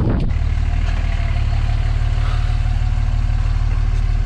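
Pickup truck engine idling steadily at close range, a low even hum.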